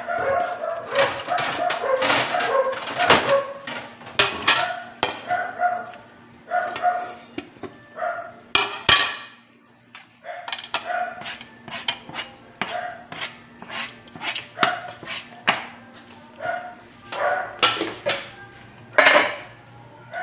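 Knife chopping air-fried chicken on a cutting board: a series of sharp, irregular knocks. A dog barks over and over through the chopping.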